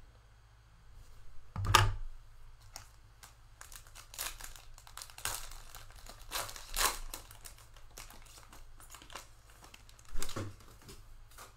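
Trading-card pack wrapper crinkling and tearing as gloved hands open it. A sharp knock comes just under two seconds in, and another near the end.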